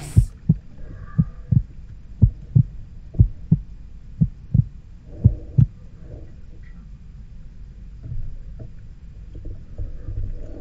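Heartbeat sound effect: slow lub-dub double thumps about once a second, six in a row, stopping about five and a half seconds in, then faint low rustling.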